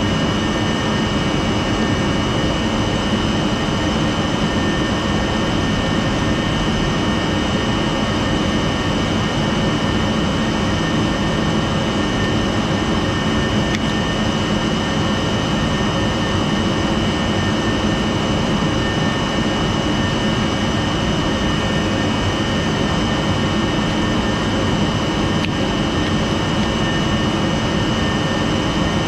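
Steady machine drone with a constant high whine, unchanging throughout.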